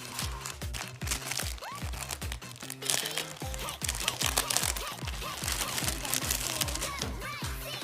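Background pop music with a steady beat, over the crinkling and crackling of plastic packaging being handled and opened.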